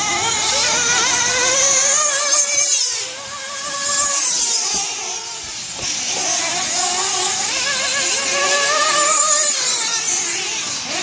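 Losi 8T 3.0 1/8-scale truggy's high-revving nitro engine racing around the track, its pitch rising and falling as the throttle is worked, easing off briefly about three seconds in and again near the middle.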